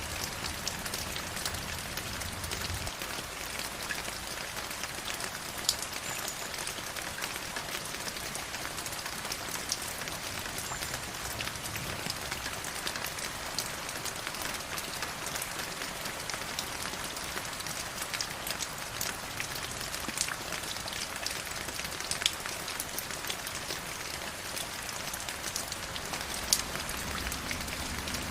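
Stream water flowing, a steady rushing hiss full of small splashes and drips, with a few sharper splashes standing out.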